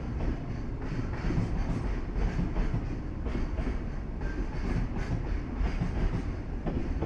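Freight train of container flat wagons rolling past: a steady rumble of steel wheels on rail, with irregular clacks as the wheels cross rail joints.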